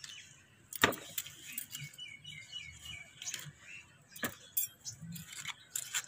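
Small hand tool digging and scraping into the dry potting soil of a terracotta pot, loosening it around a hibiscus's roots, in irregular sharp scrapes and clicks. The loudest scrape comes about a second in.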